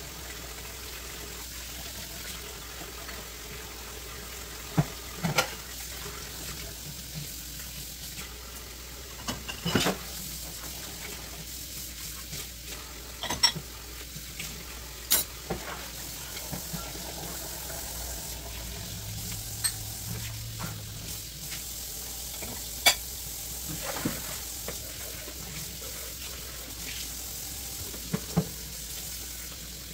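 Kitchen tap running into a stainless steel sink in a steady hiss while dishes are washed by hand, with scattered clinks and knocks of plates and cups against the sink.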